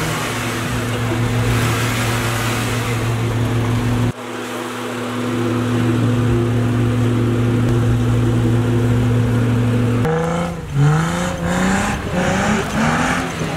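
Jeep Wrangler Unlimited's engine running at a steady pitch. About ten seconds in it starts revving up and down over and over as the wheels spin in snow.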